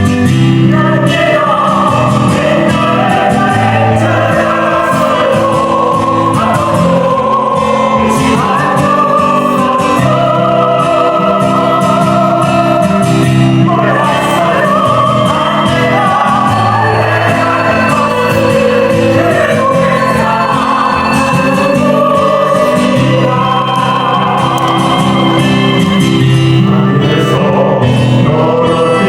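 Vocal ensemble of classically trained singers singing in harmony over steady instrumental accompaniment.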